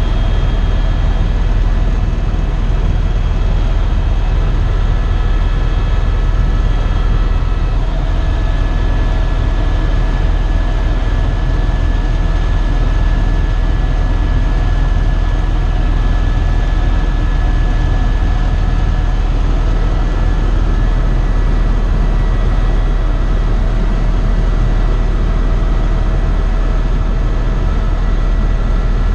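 Eurocopter EC130 EcoStar helicopter in steady cruise flight: a loud, even low rotor drone with several steady whining tones over it.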